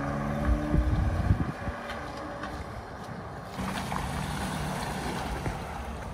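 A vehicle's engine running as it drives through deep floodwater, with water washing around it. A cluster of low thumps comes about a second in, and the engine note steadies from just past halfway.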